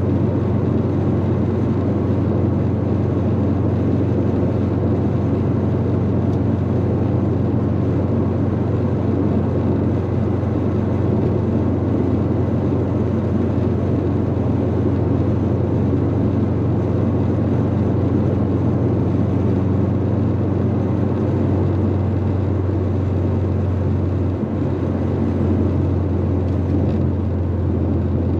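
Subaru WRX GC8's turbocharged flat-four engine and tyre noise while driving at a steady speed: an even low drone with road rumble, shifting slightly in pitch about three quarters of the way through.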